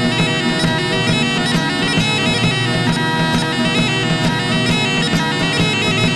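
Bagpipe music: a quick-moving melody played over a steady drone.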